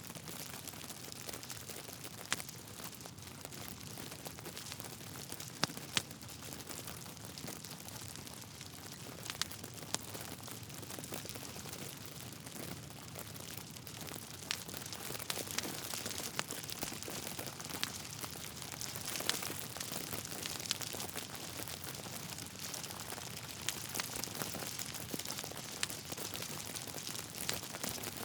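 Log fire crackling: a steady soft hiss with a dozen or so sharp pops scattered a second or a few seconds apart.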